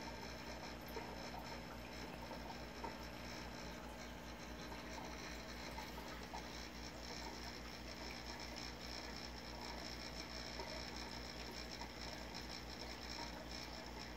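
Steady low hum from a running reef aquarium's equipment, with an even wash of noise and scattered faint ticks.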